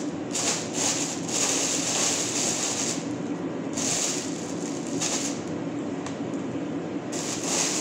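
Clear plastic bag crinkling and rustling in repeated bursts as food is packed into it, over a steady low hum.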